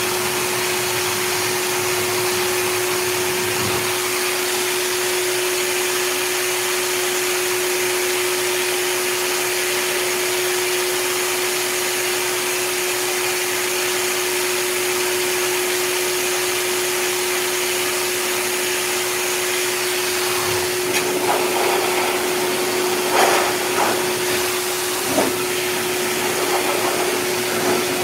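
K9 heavy-duty high-velocity pet dryer blowing air through its hose onto a dog's thick coat: a steady rushing of air with a constant hum, unchanged throughout.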